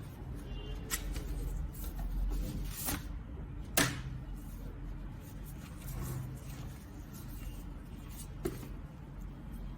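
A steady low hum with several short knocks and clicks scattered over it, the loudest about four seconds in.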